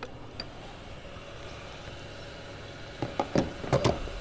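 Steady low hum of an idling vehicle engine, broken about three seconds in by a quick run of sharp clunks and clicks.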